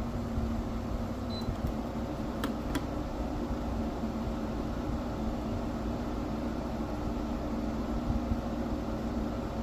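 GE window air conditioner running on high with its compressor on: a steady fan noise with a low hum.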